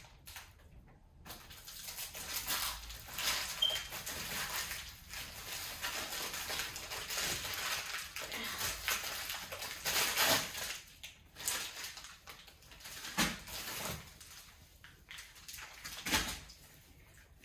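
Plastic packaging crinkling and rustling in irregular bursts as wrapped packets of seasoning cubes are handled and unwrapped, starting about a second in.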